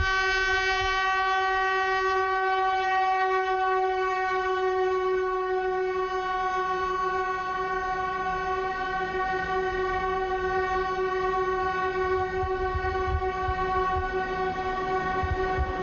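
Taiwan Railways Puyuma tilting train's horn held in one long, unbroken blast at a single pitch, over the low rumble of the train rolling slowly past: a mourning tribute blast for crash victims.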